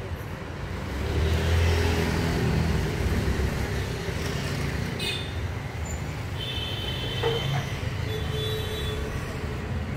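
Road traffic noise: a steady low rumble of passing vehicles, swelling as one goes by about a second in, with a few short high-pitched tones near the end.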